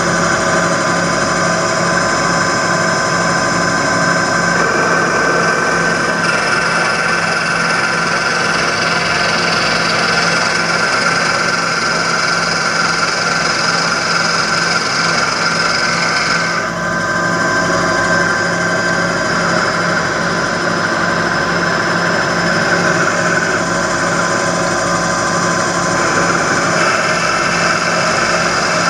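Small benchtop lathe running steadily at full speed while the cutter takes light passes, turning a cue's ferrule and tip down to the shaft diameter. There is a brief dip in the sound about two-thirds of the way through.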